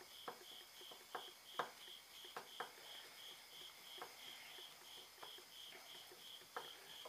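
A cricket chirping faintly in an even, high pulse about three times a second, with a few soft scattered clicks.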